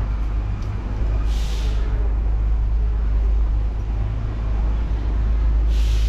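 City street traffic, a steady low rumble with background road noise. It is broken twice by a short burst of hiss, about a second in and again right at the end.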